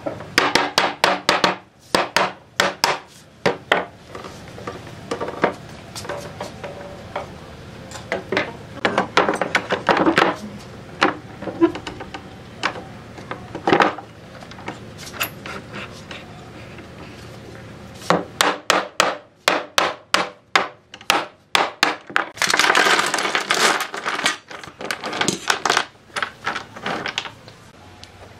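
Mallet tapping on wooden boards clamped edge to edge in pipe clamps: quick runs of sharp knocks, several a second. The runs come about a second in, again around ten to fourteen seconds, and in a long stretch from about eighteen seconds to near the end.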